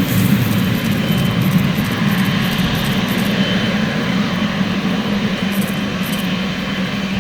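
Jet airliner engines running: a loud, steady rumble with a low drone and a rushing hiss, easing slightly near the end.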